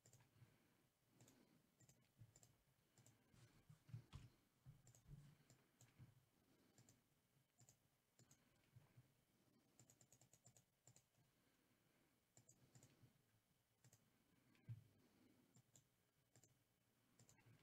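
Near silence with faint, scattered clicks of a computer mouse and keyboard, some in quick runs.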